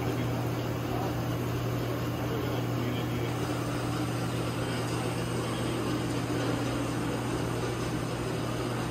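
Steady low hum of running machinery in a machine shop: one constant low tone under an even rushing noise, with no starts or stops.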